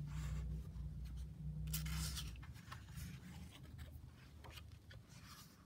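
A paper page of a hardback picture book being turned by hand: rustling and sliding paper with small crinkling clicks, a brief louder swish about two seconds in, and a low handling rumble over the first half.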